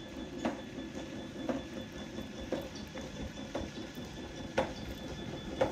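Faint splashing and trickling of a cast net being drawn in through shallow water by its hand line. A faint sharp tick sounds about once a second.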